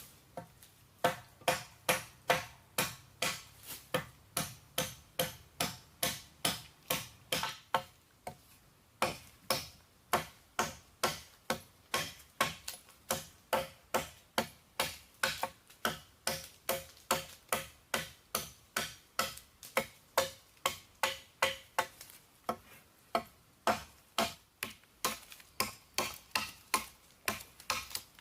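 Rapid, evenly paced knocks, about three a second, each with a short ringing note; they break off briefly about a third of the way in, then carry on at the same pace.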